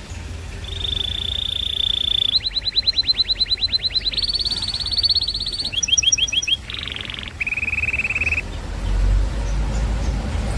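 Domestic canary singing a rolling song made of successive trilled phrases: a held whistle, then a fast run of repeated sweeping notes, then trills that each switch to a new pitch, with a short buzzy phrase near the middle. A steady low hum sits underneath and grows louder near the end.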